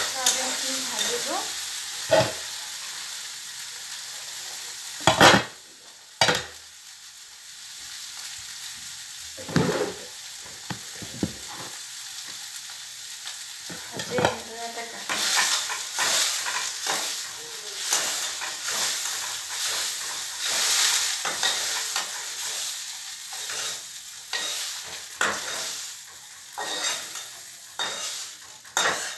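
Food sizzling as it fries in hot oil in a pan, stirred with a cooking utensil that knocks and scrapes against the pan several times, the loudest knock about five seconds in.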